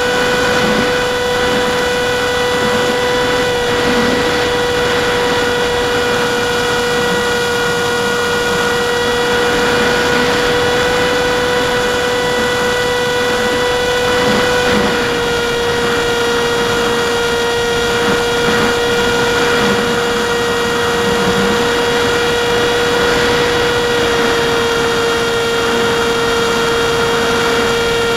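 Electric motor and propeller of an AXN Floater Jet RC plane in flight, recorded onboard: a steady, high whine under a rush of wind noise. The pitch drops slightly about halfway through and again near the end as the throttle eases.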